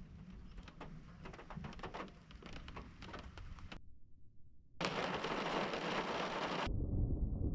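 Thunderstorm sounds: scattered raindrops ticking over a faint low rumble. Then comes a sudden gap, followed by a loud rushing hiss of rain for about two seconds, and near the end a low thunder rumble sets in.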